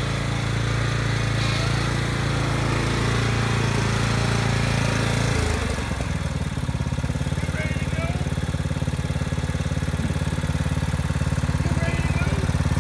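Small lawn mower engine running steadily. About five and a half seconds in, its note drops and turns more pulsing.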